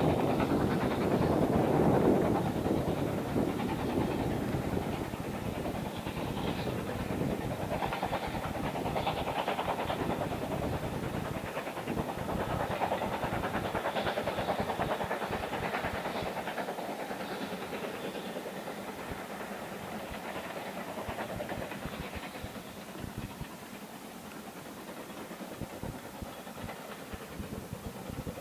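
BR Standard 4MT 2-6-0 steam locomotive No. 76017 hauling a train of coaches past. The sound is loudest in the first few seconds and fades gradually as the train draws away.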